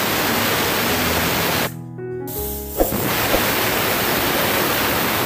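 Pressure cooker whistling: steam jets from the weight valve on the lid in a loud hiss, breaks off about a second and a half in, then starts again half a second later for a second whistle. The whistles mark the cooker at full pressure, cooking soaked whole chickpeas.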